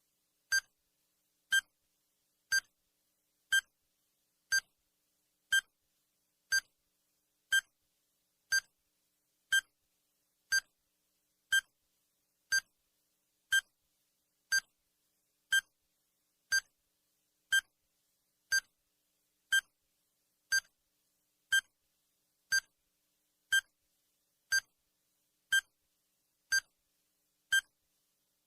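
Countdown timer sound effect: a short, high electronic beep once a second, every beep the same.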